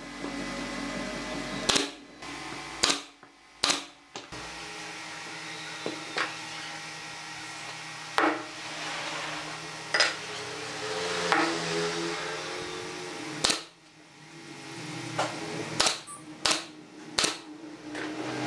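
Nail gun firing brads into pine boards: several sharp shots in the first four seconds, followed by scattered knocks and clicks of wooden pieces being handled on a wooden workbench.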